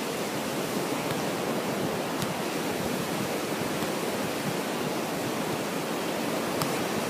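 Steady rushing noise of wind and surf on a sandy beach, with a couple of faint ticks.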